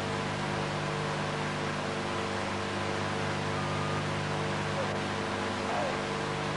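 Steady hiss and electrical hum of an air-traffic-control tape recording between radio transmissions, with a brief faint tone about halfway through.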